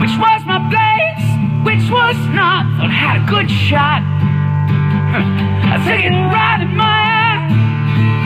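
Martin 00 acoustic guitar strummed and picked in the opening of a live song, with a steady chord pattern underneath and melodic notes above.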